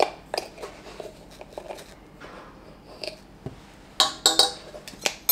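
Scattered light clicks and taps as a glass salt jar's lid is screwed on and metal measuring spoons are handled, with a sharper cluster of ringing metal clinks about four seconds in and another just before the end.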